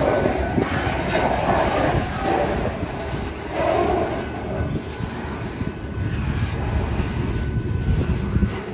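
Freight cars of a CSX stone train rolling past, their wheels rumbling steadily on the rails.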